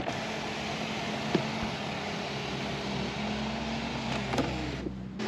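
Electric window sunblinds of a 2014 Mercedes-Benz S500L's rear cabin moving under power, a steady motor hum that starts suddenly and stops near the end.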